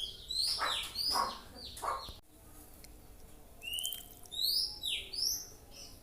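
Songbird calling. It gives harsh, coarse notes for about two seconds, then breaks off suddenly. After a short gap come a series of short, high, down-slurred whistled chirps.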